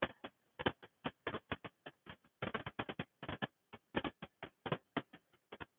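Faint, irregular clicks and taps, several a second.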